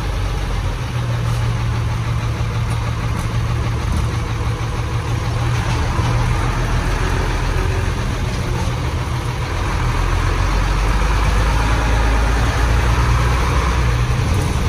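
Old Hino bus diesel engine with a snoring exhaust, running steadily at low speed with a deep low rumble, getting a little louder about ten seconds in.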